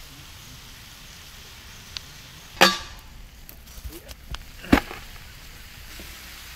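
A few sharp knocks over a steady low hiss. The two loudest come about two and a half and nearly five seconds in, with lighter clicks between them.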